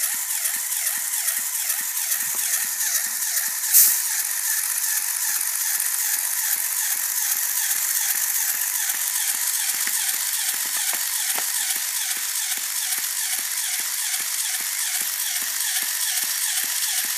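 Motor-driven Lego pneumatic compressor running steadily, a whirring rattle with an even pumping rhythm of about three strokes a second as it builds air pressure. One sharp click about four seconds in.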